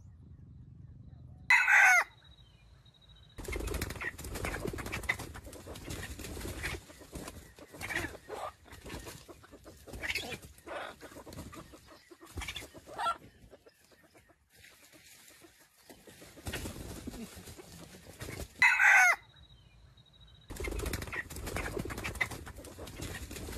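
Junglefowl rooster crowing twice, each a short shrill crow, about two seconds in and again about nineteen seconds in. In between there is a stretch of rustling, clucking and wing flapping from the fowl in the leaf litter.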